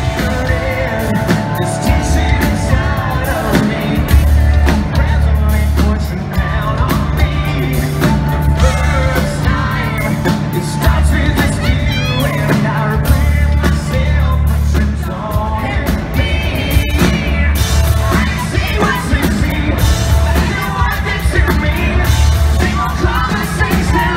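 Live rock band playing loudly, with a singer's voice over the band.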